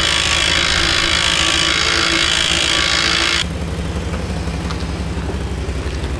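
An electric trailer winch runs steadily with a whine, pulling a car up onto a flatbed trailer, then cuts off abruptly about three seconds in. After it, a pickup truck's engine idles with a low, pulsing rumble.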